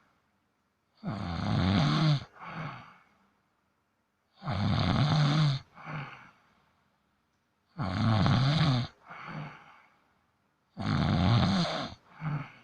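Domestic cat snoring in its sleep: four loud snores about three seconds apart, each followed by a shorter, fainter one.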